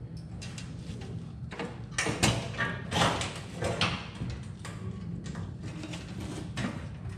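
Sheet-metal body panel and steel patch panel being handled and shifted against each other on a wooden bench: irregular scrapes and light knocks over a steady low hum.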